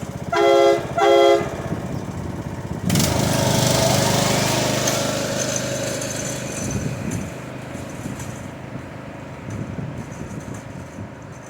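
Two short blasts of an air-powered train horn sounding a multi-note chord, over a small engine running steadily. About three seconds in, a loud rushing noise starts abruptly and fades away slowly over the next several seconds.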